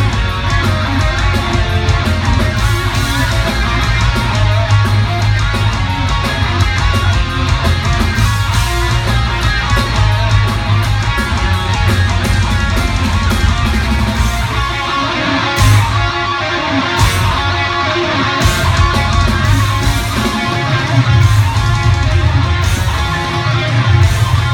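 Heavy metal band playing live: distorted electric guitars over bass guitar and pounding drums.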